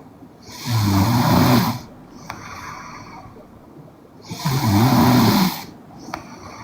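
A 20-year-old woman snoring in her sleep: two loud snores about four seconds apart, each lasting a little over a second, with quieter breathing in between.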